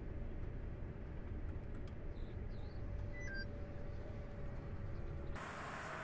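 Steady low rumble of a CLAAS Lexion 8800 combine harvester working, heard from inside its cab, with a faint steady whine. A little after five seconds it cuts abruptly to an even hiss.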